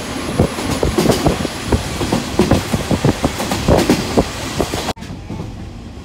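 Converted KiHa 48 diesel railcar running at speed, heard from inside the carriage, its wheels clattering over the rails in quick, uneven knocks. About five seconds in, the sound cuts off abruptly to a quieter, steady rumble inside the car.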